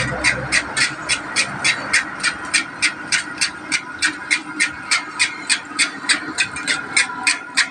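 Martabak telur deep-frying in oil in a wide flat wok, with a steady, fast ticking about three times a second over it.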